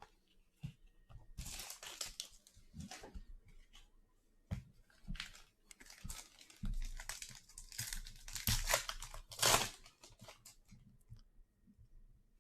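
A foil trading-card pack wrapper being torn open and crinkled, in irregular bursts that are loudest about two seconds and nine seconds in.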